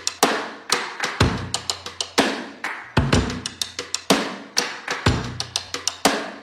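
Drum-led music: deep bass-drum hits with a held low boom about every two seconds, and quick sharp snare hits in between in a steady beat.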